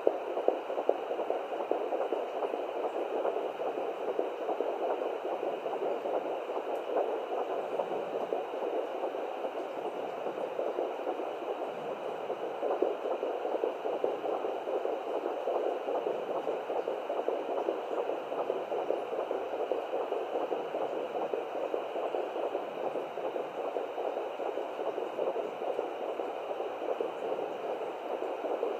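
Home fetal doppler's speaker playing a 15-week fetal heartbeat: a pulsing whoosh over a steady hiss.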